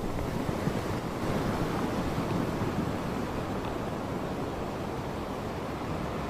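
Ocean surf breaking and washing onto a sandy beach in a steady rush, with wind noise on the microphone.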